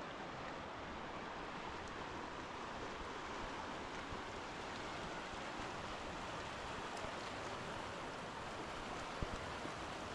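Steady rush of flowing river water, with a couple of short low knocks just after nine seconds in.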